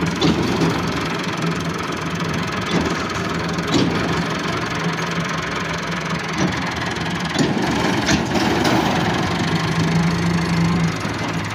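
Massey Ferguson tractor's diesel engine running steadily as it pulls a trolley off the back of a truck, getting louder near the end, with a few short sharp knocks along the way.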